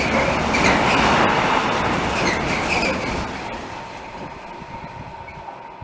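Freight train of covered hopper wagons rolling past on the rails, with short high wheel squeals in the first couple of seconds. The rumble then fades steadily as the end of the train moves away.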